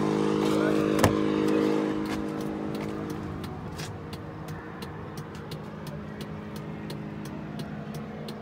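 A truck's engine idling steadily, louder at first and softer after about two seconds. About a second in there is a single sharp click, as of the cab door latch opening, and faint light ticks follow.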